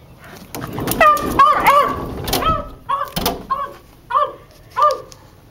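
West Highland White Terrier barking and yipping in short, high calls: a quick crowded run in the first three seconds, then single yips about every half second.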